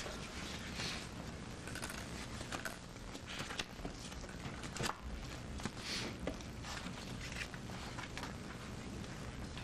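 Paper notes rustling and shuffling at the witness stand: soft, scattered rustles and a few small clicks over a steady low hum.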